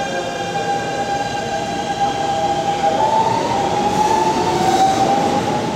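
Keikyu 1000 series train's Siemens GTO-VVVF inverter singing its 'Doremifa' tones as the train pulls away: steady musical pitches over the rolling noise, stepping up in pitch about three seconds in as it accelerates.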